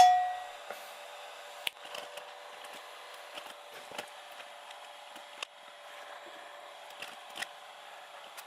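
A single struck cowbell sound effect, hit once with a bright metallic ring that dies away within about half a second. After it come a few faint scattered clicks and taps.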